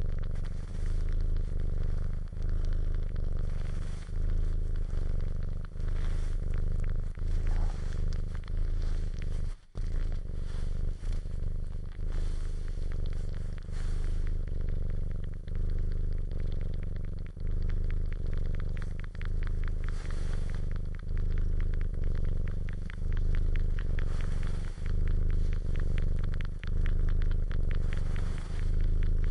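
Cat purring steadily in slow in-and-out cycles, with rapid small wet clicks of suckling that grow denser in the second half. The sound drops out briefly about ten seconds in.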